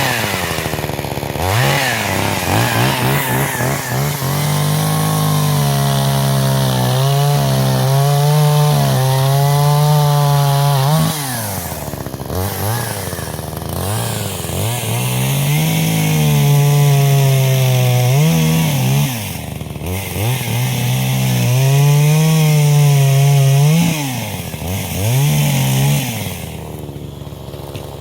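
Forest King 16/20 two-stroke chainsaw held at high revs through several long cuts into wood. The pitch wavers under load, and between cuts it drops sharply toward idle and revs back up, about five times.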